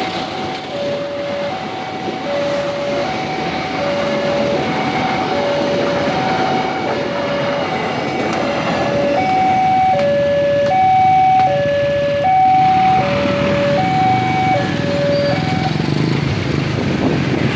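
Railway level-crossing warning alarm sounding its two-note signal, a lower and a higher tone alternating about every three-quarters of a second, over the rumble of a passenger train's coaches rolling past. The alarm stops about fifteen seconds in as the train clears the crossing.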